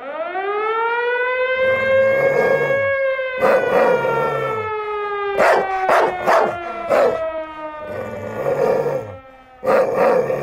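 A civil-defence siren with one long wail that rises over about two seconds and then slowly winds down, while a dog barks and growls over it, as the sound-effect opening of a wrestler's entrance theme.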